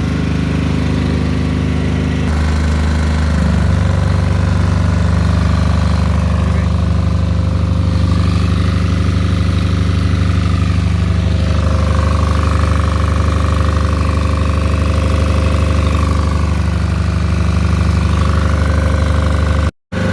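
Small diesel generator engine running steadily. Its note shifts about two seconds in and then holds even. The sound cuts out for a moment near the end.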